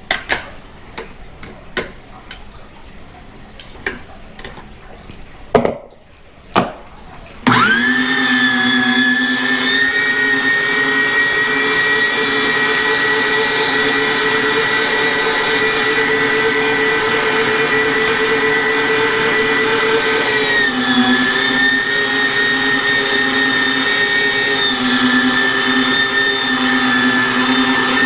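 A few knocks and clatters, then about seven seconds in an electric meat grinder's motor starts and runs steadily with a high whine, grinding raw chicken. The whine dips in pitch about two-thirds of the way through and carries on.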